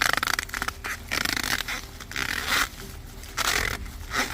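Corn leaves and husk rustling and scraping in about five short bursts as an ear of corn is twisted and pulled off the stalk.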